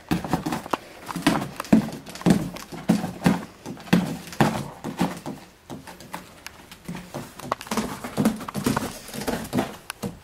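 A cat scrabbling and batting around inside a cardboard box: irregular knocks, thumps and scratches on the cardboard.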